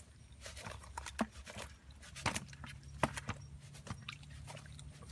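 Irregular light knocks and rattles as a woven bamboo fish trap is shaken against the rim of a plastic bucket to empty fish into it.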